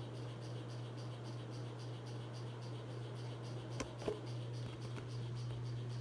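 42-inch Hampton Bay Landmark III Plus ceiling fan running on its high speed: a steady motor hum with a faint, evenly repeating tick. Two sharp clicks come about two-thirds of the way through.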